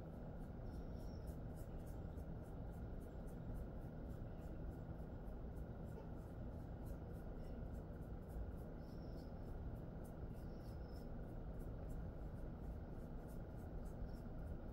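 Hands rubbing and massaging a dog's fur: quiet, even scratchy strokes about three a second, over a steady low background hum.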